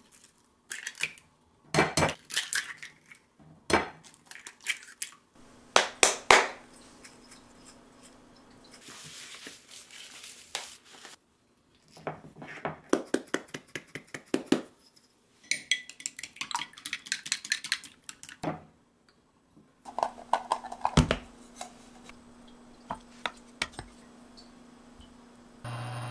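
Eggs cracked against a small glass gravy boat and dropped in, with a run of sharp taps and glass clinks, and a salt grinder turned over the eggs with a soft gritty hiss.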